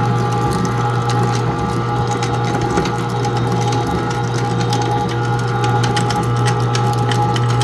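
Homemade plastic grinder, a paper-shredder motor driving a dual-shaft shredder, running with a steady motor hum while plastic scraps crack and click between the cutters.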